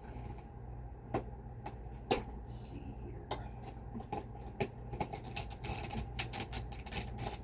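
Scattered clicks and knocks of a Hoover Celebrity canister vacuum's parts being handled and fitted back together, coming more thickly in the second half, over a steady low hum.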